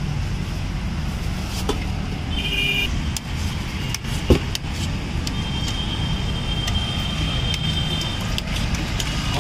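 Steady road-traffic rumble, with light clinks of steel plates and bowls being handled and one sharp clack about four seconds in. A thin high tone holds for about three seconds in the second half.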